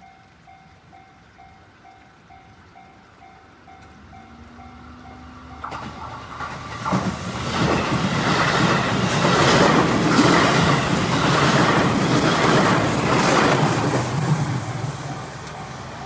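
A level crossing warning bell dings about twice a second. Then a JR West 221 series electric train passes close by: a loud rush with its wheels clattering over the rail joints, building from about six seconds in, loudest in the middle and fading near the end.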